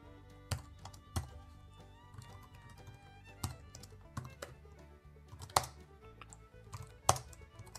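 Computer keyboard typing: scattered keystroke clicks, with two sharper, louder ones about five and a half and seven seconds in, over quiet background music.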